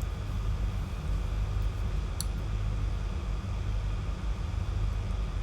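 Steady low electrical or fan-like hum with a faint even hiss of background noise, and one brief faint click about two seconds in.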